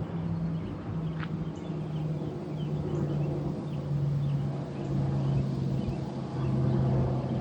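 Aircraft engine drone, a steady low hum whose pitch slowly falls, with small birds chirping faintly.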